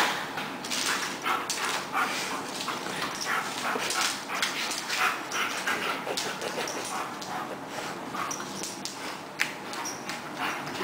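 Alaskan Malamute spinning after its own tail, giving short whimpers and yips amid a busy run of scuffling noises from fur and claws on a hard floor.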